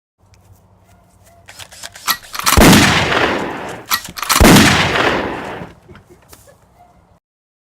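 Two loud gunshots about two seconds apart, each with a long echoing tail, after a few light clicks.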